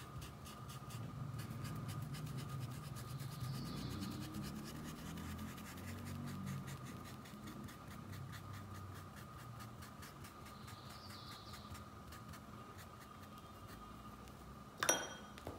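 Soft scrubbing of a paintbrush rubbing grey fabric paint into cotton cloth, with a faint steady high hum behind it. A short knock comes near the end.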